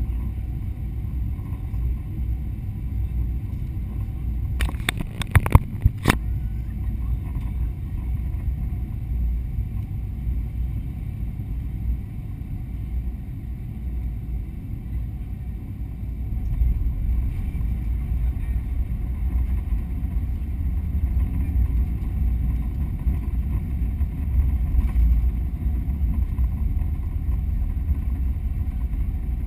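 Cabin noise of a Boeing 777-200 landing, heard from a window seat over the wing: a steady low rumble of engines and airflow, with a brief cluster of sharp clicks about five seconds in. The rumble grows louder from about sixteen seconds in, around touchdown, and by the end the aircraft is rolling on the runway with its spoilers up.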